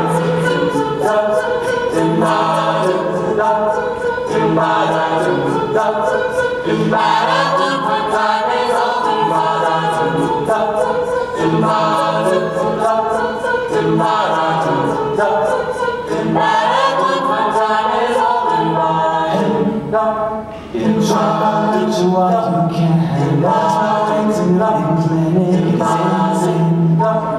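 Mixed-voice a cappella group singing a song in close harmony, a low bass line under stacked upper voices, with a steady ticking beat running through it.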